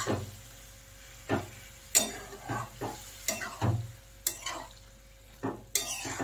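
Spatula stirring a pan of boiled bottle gourd and chana dal mixed into masala, with irregular scrapes and knocks against the pan about once or twice a second.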